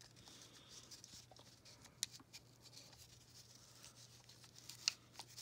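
Faint rubbing and rustling of a stretchy doll dress being worked onto a Barbie doll's plastic body by hand, with two sharp clicks, about two seconds in and near the end, over a low steady hum.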